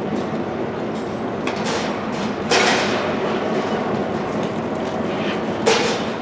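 Freight train cars rolling slowly on the rails during a switching move, a steady rumble broken by two sharp bangs, one about two and a half seconds in and one near the end.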